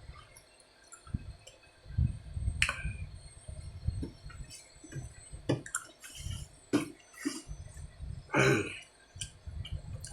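Close-miked eating sounds: chewing with wet mouth smacks and small clicks, and a louder wet mouth sound about eight and a half seconds in.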